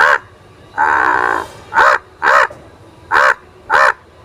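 A man imitating a crow's cawing with his voice: a run of about six short caws, the second one drawn out longer, about a second in.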